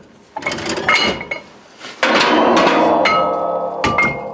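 Metal knocks and clinks, then a loud scraping clatter of about two seconds with a ringing metal tone, as the 50 lb rear wheel weights are being refitted to the tractor's rear wheel.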